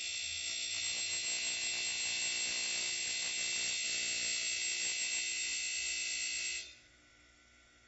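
Darex end mill sharpener grinding the primary cutting edge on the flutes of an end mill: a steady high hiss that stops suddenly near the end.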